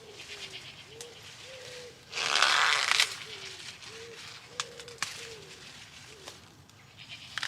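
A dove cooing, a steady run of short, low, arched notes repeated over and over. About two seconds in, a loud rustling noise lasts about a second, and a few sharp clicks are heard.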